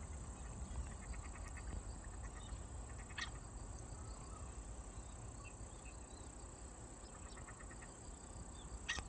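A duck making sharp, hiccup-like calls: two short clicks about six seconds apart, with faint series of rapid ticks in between, over a low background rumble.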